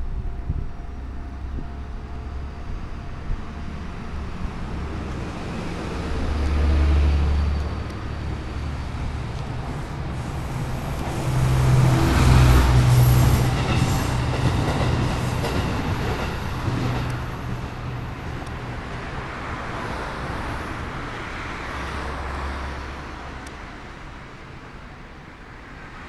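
JR West 213 series electric train passing by. The train noise swells to its loudest about halfway through, with a high whine near the peak, then fades away.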